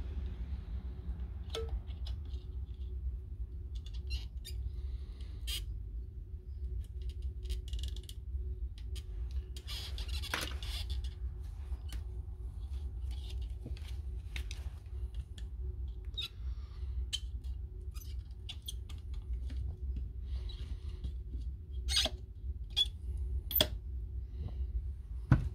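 Soldering on a circuit board: small ticks and crackles as the iron and solder work a pad, with a brief flux sizzle about ten seconds in and a few sharper clicks near the end, over a steady low hum.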